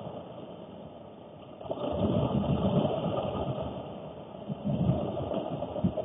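Heavy rain drumming on a car's roof and rear window, heard from inside the cabin through a dashcam microphone, with uneven surges; it gets louder a little under two seconds in.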